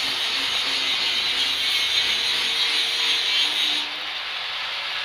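Electric arc welding: the arc's steady crackling hiss, which cuts off about four seconds in as the arc is broken.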